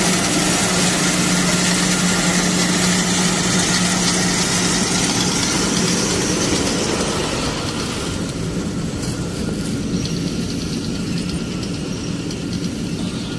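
Legume harvesting machine running steadily with a steady engine tone and a hiss. About seven seconds in, the tone and hiss ease off and the sound becomes quieter.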